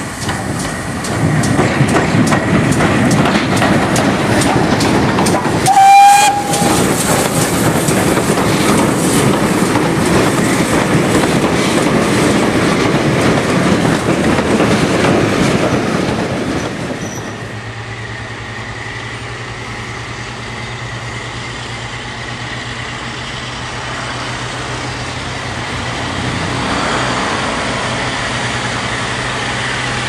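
Steam-hauled train running close by, wheels clattering over the rail joints, with one short whistle blast about six seconds in. After about seventeen seconds the clatter gives way to a quieter steady drone with a low hum as a diesel locomotive approaches.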